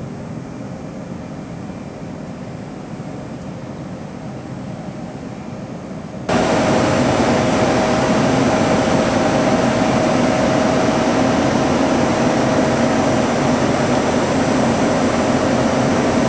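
A steady mechanical drone with a constant whine in it, which jumps much louder all at once about six seconds in.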